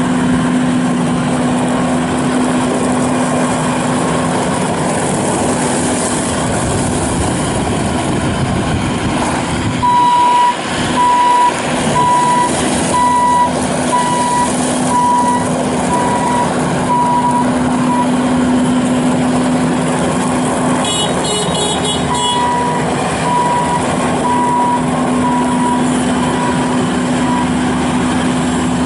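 Bobcat S750 skid steer's diesel engine running at a steady speed, with a beeping backup alarm sounding a little over once a second in two runs, from about a third of the way in and again in the last third. A short burst of high chirps falls between the runs.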